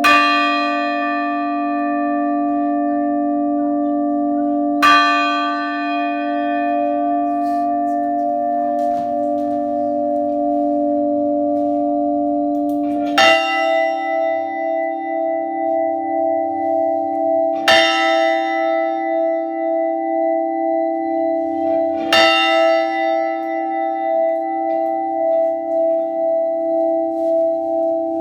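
Mission church bells tolling slowly: single strikes roughly every four to five seconds, each note ringing on long after the stroke. About 13 seconds in, a slightly higher-pitched bell takes over, and its ringing wavers in level.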